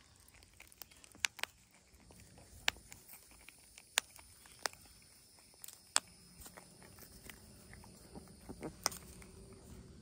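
Prairie dogs eating hard pellets from a bowl: sparse, irregular sharp crunching clicks as they bite into the food.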